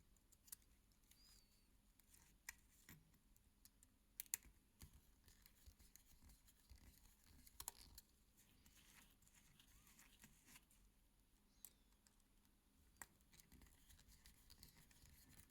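Faint, scattered small clicks and scratches of tools working on a mechanical watch movement as its tiny screws are taken out, with a few sharper clicks about four and a half and seven and a half seconds in.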